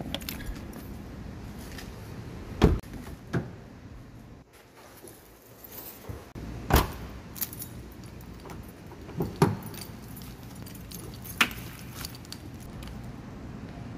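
Keys jangling, with a handful of sharp clicks and knocks a second or more apart over a steady low background hum.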